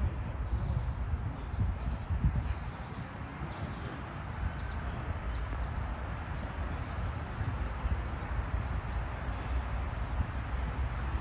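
Outdoor ambience: a steady low rumble, like wind on the microphone, with short high bird chirps every couple of seconds.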